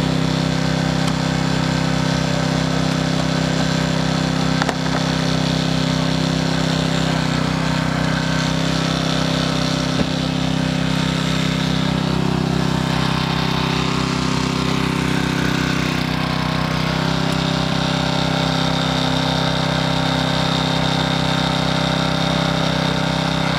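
Small engine of a hydraulic rescue-tool power unit running steadily, its pitch shifting slightly now and then as the tools draw on it, with a couple of faint knocks.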